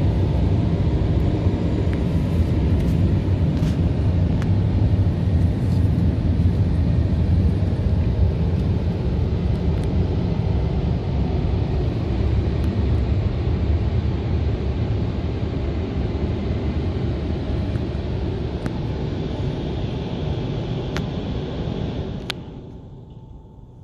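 Automatic car wash running over the car, heard from inside the cabin: a loud, steady rumble of rotating brushes and water spray on the body and windscreen, with a few light ticks. It drops away abruptly near the end.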